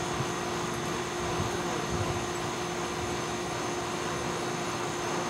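A steady mechanical drone with a constant low hum, even in level throughout.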